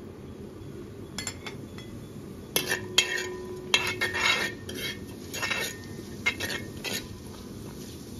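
Steel spoon scraping and knocking against a wide aluminium uruli while stirring fennel seeds in oil. Faint clicks about a second in, then from about two and a half seconds a run of knocks and scrapes, the first few leaving the pan ringing briefly.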